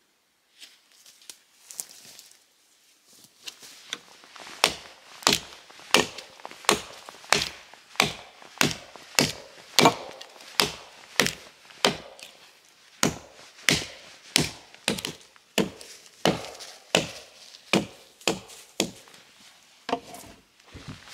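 Axe chopping wood: after a few light knocks, a steady run of sharp blows begins a few seconds in, about three every two seconds, with a brief pause midway.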